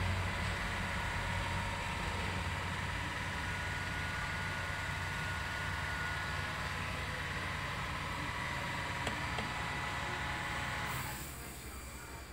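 Steady machine hum with several faint high whining tones; about eleven seconds in the hum drops and a thin high hiss takes over.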